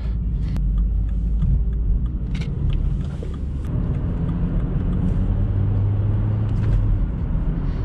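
Inside the cabin of a 2013 BMW 116i with Sport mode engaged, its 1.6-litre turbocharged four-cylinder engine runs under a steady low rumble of road and tyre noise. A steady engine hum stands out from about four seconds in to about seven.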